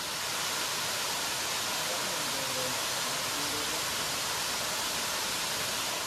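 Benton Falls, a waterfall cascading down a tiered rock face, rushing steadily.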